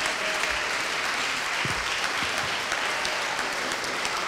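Crowd of guests applauding steadily, a dense even patter of many hands clapping.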